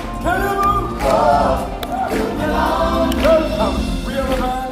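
A choir of live stage performers singing together over musical accompaniment.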